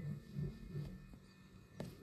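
Quiet room tone with a faint low hum and one soft click near the end.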